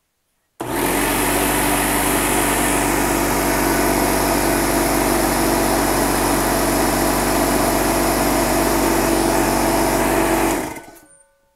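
DEWALT 6-gallon oil-free pancake air compressor's electric motor and pump starting abruptly and running steadily, filling the tank from about 60 PSI. It shuts off about ten and a half seconds in and winds down.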